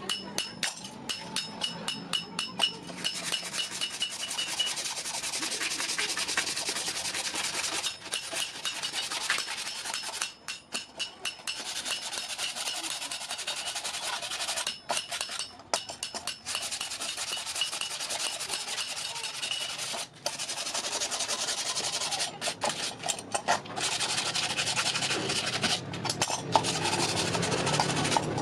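Steel of a hand-forged scissors being smoothed with an abrasive, a rasping rub against metal. Quick separate strokes at first, then a near-continuous rasp broken by several short pauses.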